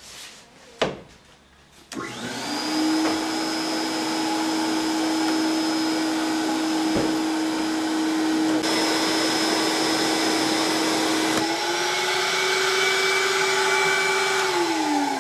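A sharp click, then about two seconds in a vacuum cleaner starts up and runs steadily, sucking air through a homemade PVC pneumatic tube. Near the end its pitch rises a little, then falls as the motor winds down.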